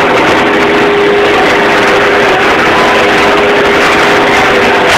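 Bobcat skid-steer loader's engine running loud and steady, heard from inside the cab, with a steady whine.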